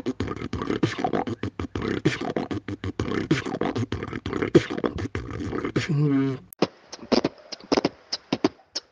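Beatboxing: a dense, fast run of percussive mouth sounds, ending about six seconds in on a short pitched vocal tone. After an abrupt break, a sparser pattern of sharp beatboxed strokes starts.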